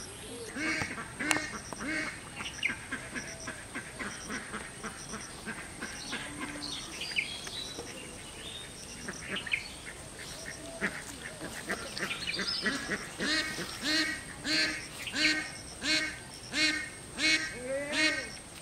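Ducks quacking: scattered calls at first, then a steady run of louder quacks, about one and a half a second, over the last five seconds or so.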